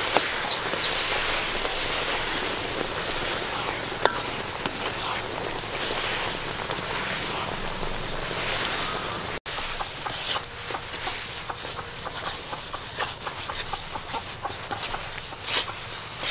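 Mung bean paste frying in oil in a metal wok, a steady sizzling hiss as a metal ladle stirs it. After a brief dropout about nine seconds in, the sizzle is lower, with many scattered clicks and taps as the thickening paste is stirred.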